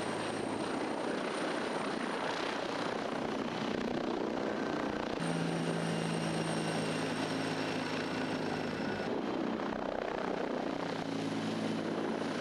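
TAI T129 ATAK attack helicopter in flight: its twin turboshaft engines and main rotor make a steady drone. The tone shifts abruptly about five seconds in and again about nine seconds in.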